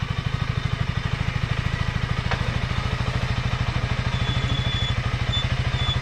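Motorcycle engine idling with a steady, rapid, even pulse, and a single faint click about two seconds in.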